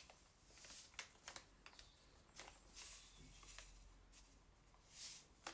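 Faint scraping of a metal fork stirring yeast in the well of a bowl of flour, with several light clicks and a few soft swishes.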